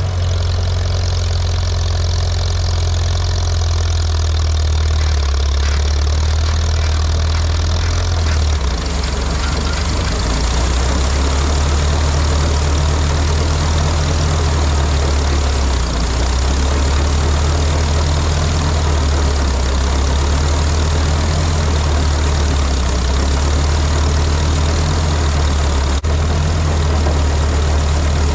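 Farmall B tractor's four-cylinder engine running steadily under load, driving an Artsway 420 grinder-mixer through its PTO to stir ground ear corn; the mixer pulls hard on the small tractor.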